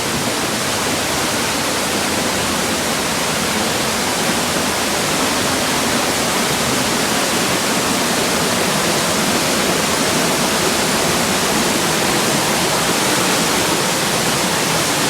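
Heavy rain and a rushing stream making a steady, loud rush of water.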